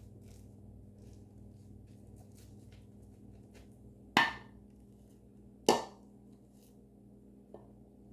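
Safety razor strokes scraping faintly through stubble, then two sharp knocks about a second and a half apart, each with a short ring, the loudest sounds here.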